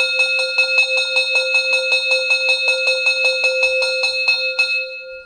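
Steam locomotive bell (Läutewerk) sound from the model's ESU LokSound 5 XL decoder, played through its loudspeaker: rapid, even strokes, about six a second, on a bell with several ringing tones. The strokes stop about four and a half seconds in and the bell rings out.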